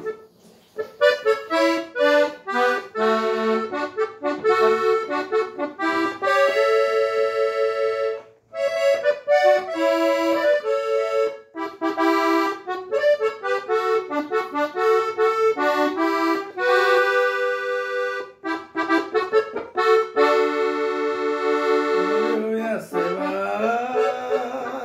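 Accordion playing a melody with chords in the key of D, in phrases broken by short pauses, with a rising run near the end.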